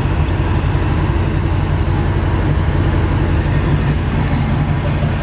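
1969 Chevrolet Camaro SS's freshly rebuilt 427 big-block V8 idling steadily with a deep, even rumble.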